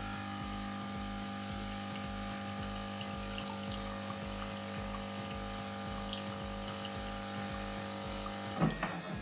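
Siemens EQ500 espresso machine's pump running steadily during its automatic water rinse cycle, a pitched hum with a regular low throb and water flowing through, then cutting off with a click near the end.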